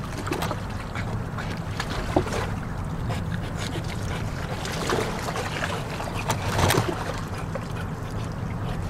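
Steady wind rumble on the microphone over lapping bay water, with a few brief splashes from a dog paddling.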